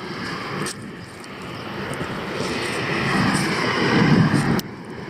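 Strong wind buffeting the microphone in gusts, a rushing, rumbling noise that builds to its loudest near the end and then cuts off abruptly.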